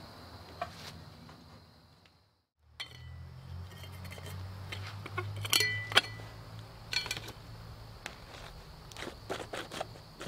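Sharp metallic clinks and taps with short ringing, from metal gutter pieces and hardware being handled and fastened, over a low steady hum and a high insect drone. The sound fades out about two seconds in and picks up again a moment later.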